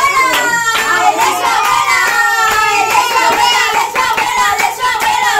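Several children's high voices singing and calling out over one another, with hand clapping mixed in.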